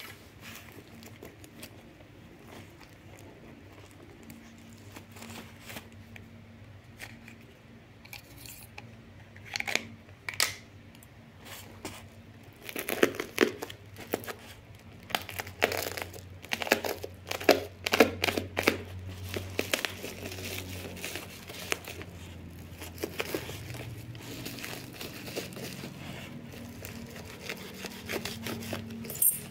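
Plastic parcel wrapping being cut open with a utility knife and torn: irregular crinkling and tearing, sparse at first and busiest in the middle stretch.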